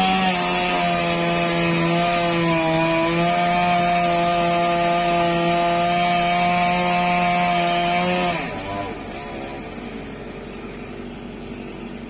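Two-stroke chainsaw revved up and held at full speed while cutting palm wood for about eight seconds, then throttled back, its high note falling away. A lower steady engine hum remains after it.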